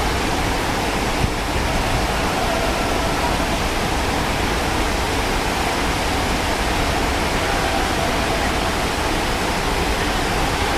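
Steady rush of the Hatzbani stream's rapids, water pouring over rocks and small cascades.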